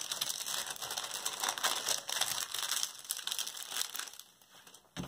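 Clear plastic protective film on a diamond painting canvas crinkling and rustling as it is lifted and smoothed down by hand. The rustling dies away about four seconds in, and a single click follows near the end.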